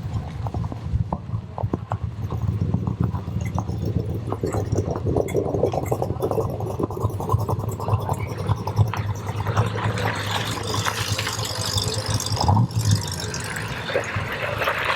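Classic American V8 engine running with an uneven, pulsing beat, joined by a louder, hissier sound from about ten seconds in.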